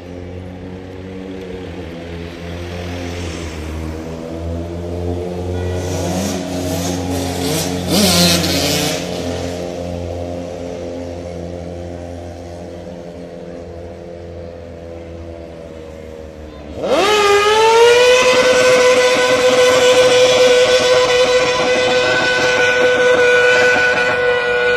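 Vehicle engines running in the street, one revving up briefly about six to eight seconds in. At about seventeen seconds a car engine is suddenly revved high and held there, with tyre noise over it, as the car does a smoky burnout.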